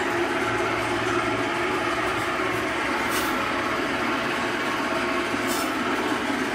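Steady droning machine noise in a butcher's shop, with a couple of brief hisses about three and five and a half seconds in.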